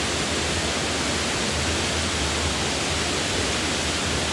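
Laurel Falls cascading over the rock ledge close by: a steady, unbroken rush of falling water.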